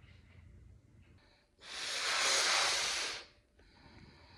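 A man blowing one long hard breath into a latex balloon to inflate it: a loud rushing hiss lasting about a second and a half.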